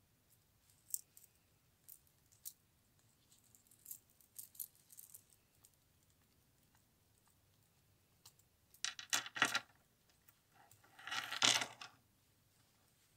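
Silver charms on a Pandora bracelet clicking and jingling against each other and the chain as it is handled: scattered light clicks at first, then two louder metallic rattles about nine and eleven seconds in.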